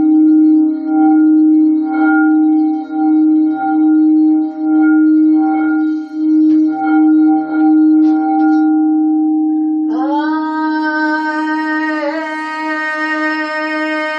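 A singing bowl rings with one steady low tone that swells and dips about once a second. About ten seconds in, a second long-held note, rich in overtones, slides up into pitch and sounds over the bowl's hum.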